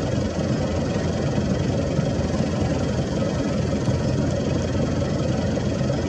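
A vehicle engine running steadily, a dense even rumble.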